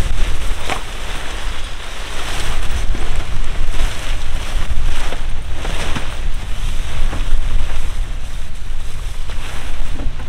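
Wind buffeting the microphone with a heavy, uneven low rumble, over rustling and flapping of nylon tent fabric as a pop-up docking tent is pulled open and spread, with a few sharp fabric snaps.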